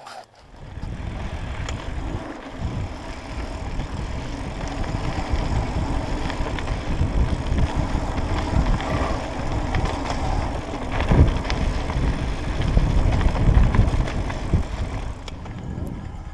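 A mountain bike riding fast over a dirt trail: tyre rumble and the bike rattling over bumps, with wind buffeting the microphone. There is a sharper knock from a jolt about eleven seconds in.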